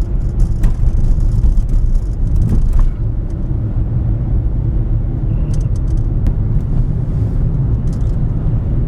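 Car driving, with a steady low rumble of engine and road noise heard from inside the cabin.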